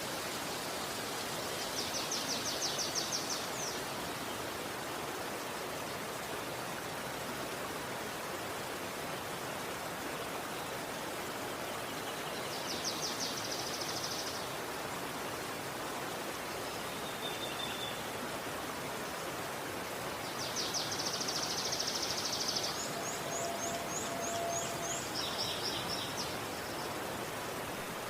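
Steady rushing of a river, with songbirds breaking in several times with short, rapid trills, the busiest stretch coming a little after two-thirds of the way through.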